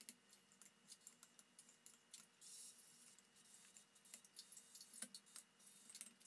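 Metal spoon and fork clinking and scraping against ceramic bowls while eating. Faint, irregular small clicks, with a short scrape about two and a half seconds in and a sharper clink about five seconds in.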